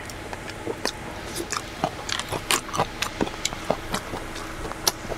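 A person chewing a mouthful of kimchi close to a clip-on microphone: a run of small, irregular crunches and wet clicks.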